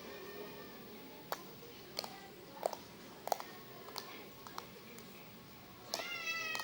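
Red slime being worked by hand, giving sharp sticky clicks and pops at uneven intervals of about half a second to a second. Near the end a cat starts meowing.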